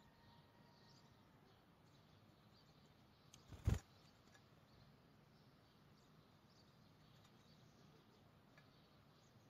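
Near silence with a faint steady hiss, broken once, a little under four seconds in, by a single short sharp click or knock.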